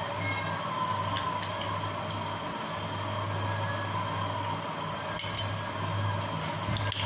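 Metal hand-held lemon squeezer pressing lemon halves, with a few light clicks and one sharper metallic clink about five seconds in, over a low background hum.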